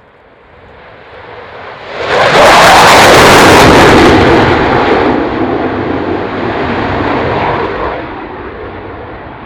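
Dassault Rafale's twin M88 jet engines on a fast low pass: the jet noise swells, jumps sharply about two seconds in to a loud peak for two to three seconds, then fades away.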